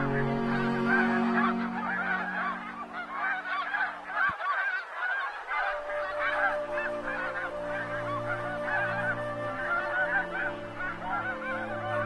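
A large flock of snow geese calling together: a dense chorus of many short, overlapping honks with no break, over a steady low drone.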